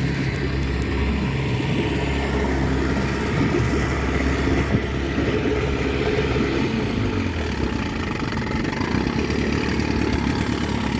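1978 Chrysler 15 hp two-cylinder two-stroke outboard motor running steadily and smoothly.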